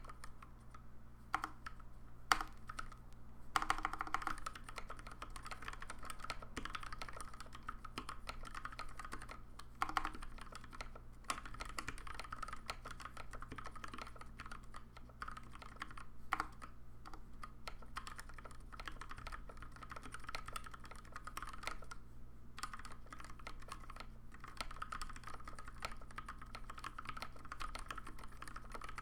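Continuous typing on a custom Alice-layout mechanical keyboard (the Nunu) with lubed Gateron Pink switches on 72g springs under PBT keycaps. It gives a steady, fast stream of keystrokes, with a few louder keystrokes standing out.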